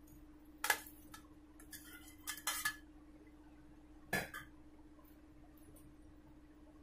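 A few light clinks and knocks of a steel plate against a steel pot as fried dahi bhallas are dropped into it, with a faint steady hum beneath.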